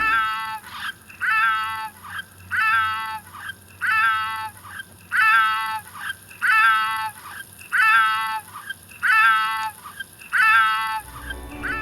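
Gary the Snail's cartoon meow, repeated nine times at an even pace of about one every 1.3 seconds, each a short meow.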